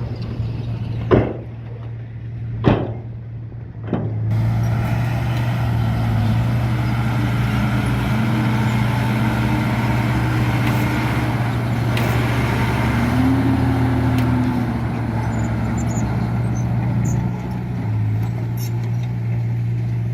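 Heavy diesel engine of construction machinery running steadily, with three sharp knocks in the first four seconds. From about four seconds in the engine sound grows fuller and louder, with a wavering whine over it.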